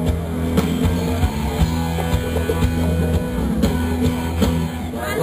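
Instrumental band music with guitar over sustained bass notes and a steady drum beat; no singing.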